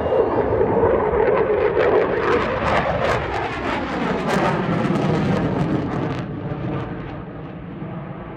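F-15C Eagle fighter jet's twin Pratt & Whitney F100 turbofans in a low, fast flyby: a loud, crackling jet noise whose pitch falls as the jet passes, then fades after about six seconds.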